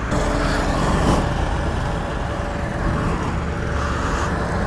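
Motorcycle riding at a steady pace: engine hum mixed with steady road and wind noise.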